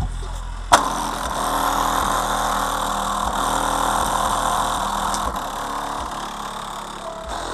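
A click, after which a car engine idles steadily.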